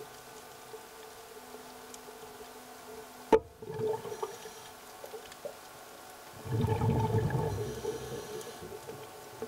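Underwater sound of air bubbles rumbling and gurgling past the microphone in bursts, a short one about a third of the way in and a longer, louder one about two-thirds through, typical of a diver's exhaled breath. A faint steady hum runs underneath, and a single sharp knock comes just before the first burst.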